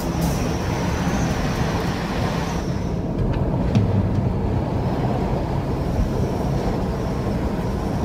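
Steady road and engine noise of a moving car heard from inside the cabin, with a low rumble and a wind hiss that softens about three seconds in.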